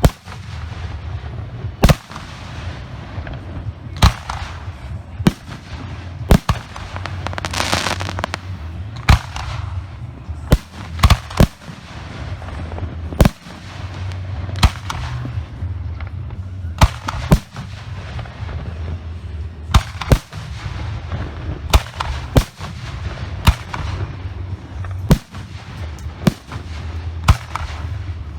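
Professional aerial firework shells launching and bursting, a sharp bang roughly every second at an uneven pace. There is a denser stretch of hissing and crackle about eight seconds in.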